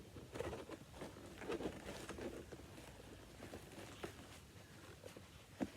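Faint scattered rustling, scraping and light tapping of hands working at a cardboard box, trying to get it open.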